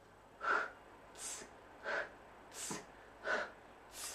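A woman's voice repeatedly pronouncing the Russian consonant sound "ts" (the letter Ц, t and s said together), six short hissy bursts about one every 0.7 seconds.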